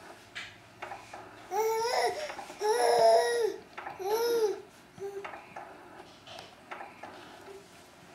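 Baby babbling: three loud, high-pitched vocal sounds, each under a second long and rising then falling in pitch, with a few soft clicks between.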